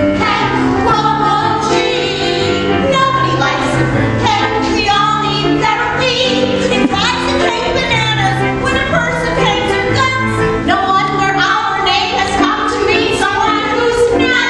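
Women singing into microphones over an instrumental accompaniment with a bass line moving from note to note.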